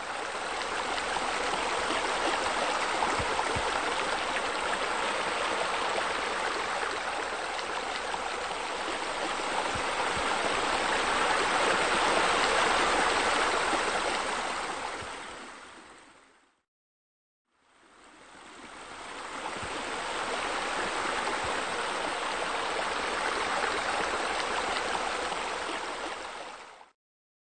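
Steady rush of running water, as from a waterfall, that fades out about sixteen seconds in, fades back up a second later and stops near the end.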